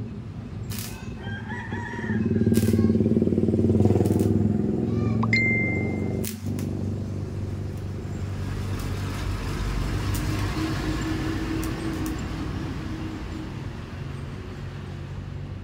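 Motorcycle engine running, louder for a few seconds about two seconds in, then settling back to a steady idle.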